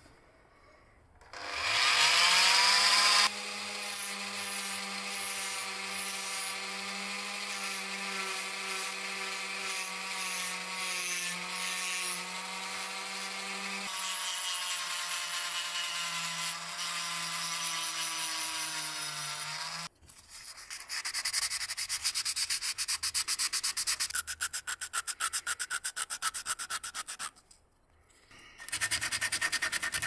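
A flex-shaft rotary tool spins up with a rising whine about a second in and runs steadily with a wire brush scrubbing a small metal lighter part, then stops about two-thirds of the way through. After it stops comes quick back-and-forth rubbing of the metal part on abrasive paper by hand, pausing briefly near the end.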